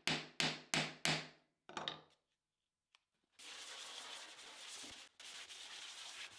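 Hand sanding of dried wood filler on a plywood cabinet: a quick run of short sandpaper strokes in the first two seconds, then after a short pause a steady rubbing hiss.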